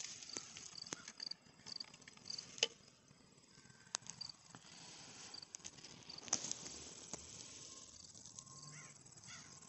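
Faint rustling and snapping of leaves and twigs as a raccoon forages through low shrubs, scattered clicks among them. Behind it an insect chirps over and over in short, high-pitched notes.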